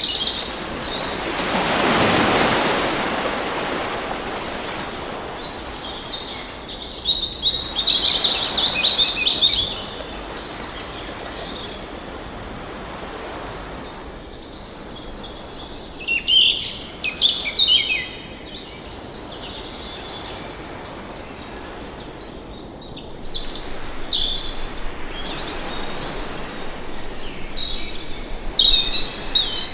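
Songbirds calling and trilling in several bursts of quick, high notes. Underneath is a steady rush of water that swells and fades once near the start, like a wave surging in.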